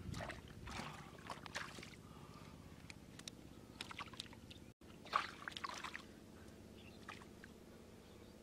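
Hands splashing and squelching in shallow muddy water: a string of short sloshes and splashes, the sharpest about five seconds in.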